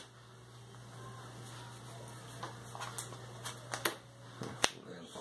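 Magic: The Gathering cards being laid down and handled on a playmat: scattered soft taps and clicks, with one sharp tap near the end, over a steady low hum.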